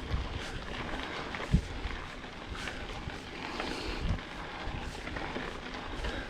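Mountain bike ride on a wet trail: steady noise with gusts of wind buffeting the microphone and a single sharp knock about one and a half seconds in.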